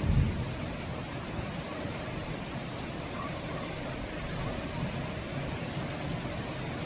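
Steady rain, an even hiss, with the tail of a low thunder rumble dying away in the first half second.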